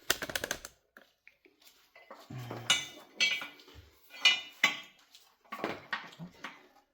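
Metal tools clinking and knocking against the metal parts of a car's rear subframe: a quick run of clicks at the start, then several sharp separate clanks, each with a short ring.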